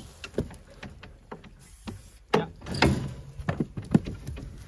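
Irregular knocks and clatter as ewes are handled for pregnancy scanning, growing louder from about halfway.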